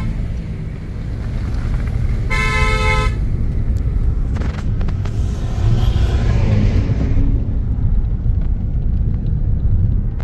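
A car horn sounds once for just under a second, a couple of seconds in, over the steady low rumble of a car being driven.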